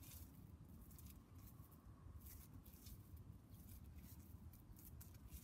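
Near silence: a low background rumble with faint, brief rustles and scuffs scattered throughout.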